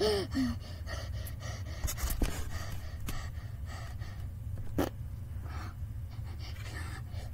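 Breathy panting and gasps from a person voicing a toy cat straining in labour, with a few sharp clicks of handling.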